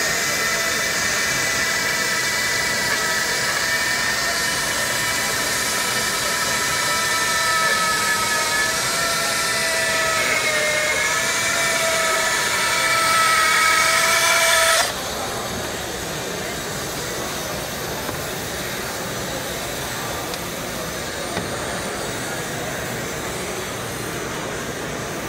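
Large bandsaw resawing a thick, wide board: a steady whine with a loud hiss from the blade cutting, its pitch wavering slightly under the feed about ten seconds in. About fifteen seconds in the cutting noise stops abruptly as the blade comes out of the board, leaving a lower steady noise.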